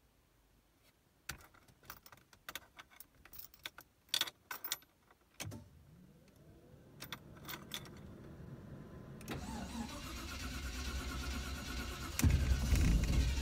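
A NASCAR stock car's V8 being started: scattered clicks and knocks, then a starter whine that rises in pitch and grows louder over several seconds, and the engine catches loudly about a second before the end.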